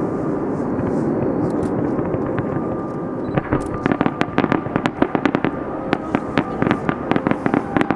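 Fireworks display: a dense, continuous rumble of bursts, then from about three seconds in a rapid, irregular run of sharp cracks and pops.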